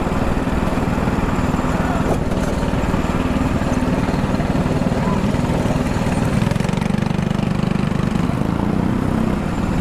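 Go-kart engine running steadily, an even small-engine hum that grows a little stronger about seven seconds in.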